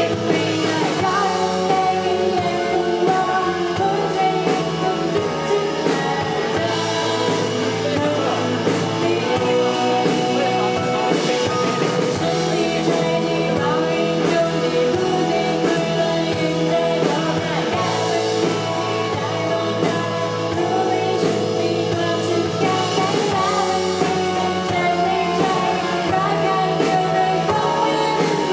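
Live electronic-pop band playing with a singer, synths, guitar and drum kit keeping a steady beat.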